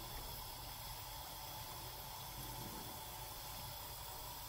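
Chicken shingaras (samosas) deep-frying in hot oil in a pan: a steady, soft sizzling and bubbling.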